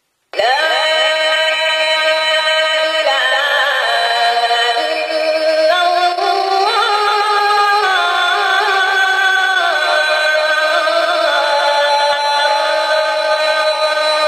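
A recorded adhan (Islamic call to prayer) played by a mosque-shaped azan alarm clock: one long, ornamented, melismatic sung phrase. It starts abruptly a fraction of a second in, after silence.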